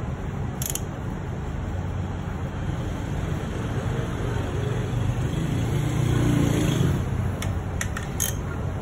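Steady low rumble that swells for a second or so about six seconds in, with a few sharp metallic clicks of hand tools on the engine near the end.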